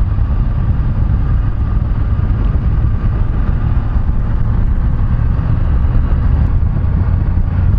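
Wind buffeting on the camera microphone of a BMW F850GS ridden at about 45 km/h, with the bike's parallel-twin engine running steadily underneath at a constant speed. The sound is a steady low rumble with no change in pitch.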